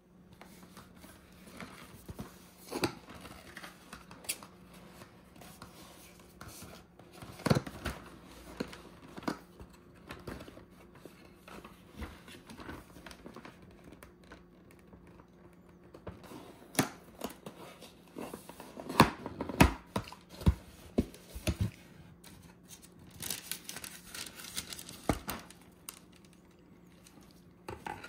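Cardboard bakery boxes and their paper liners being handled and opened: scattered crinkles, rustles and light taps, busiest about two-thirds of the way through, over a faint steady hum.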